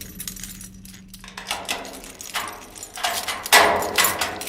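A bunch of keys jangling and clicking, then a single sharp thud about three and a half seconds in, followed by a few more clicks.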